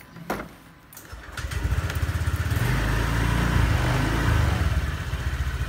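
Honda Air Blade 125 scooter's single-cylinder engine started on the electric starter. After a couple of light clicks it catches about a second and a half in, runs up briefly and then settles to a steady, quiet idle.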